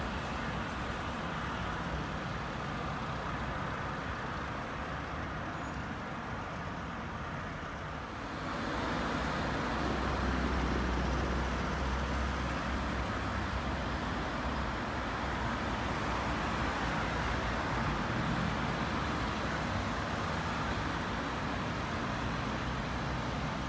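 City street traffic noise: a steady wash of passing road vehicles. About eight seconds in it grows louder, with a deep rumble coming up underneath.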